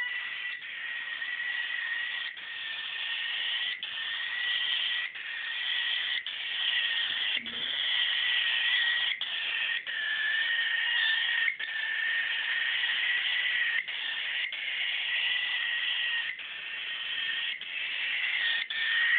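Hungry cockatiel giving a continuous high, raspy food-begging call, a steady cry broken by short breaks about once a second. A single brief knock comes about seven seconds in.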